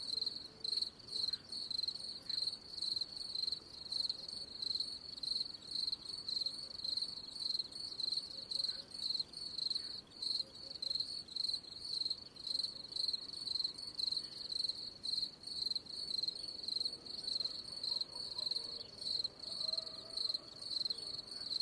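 A cricket chirping: a high, thin trill repeated in steady, evenly spaced chirps.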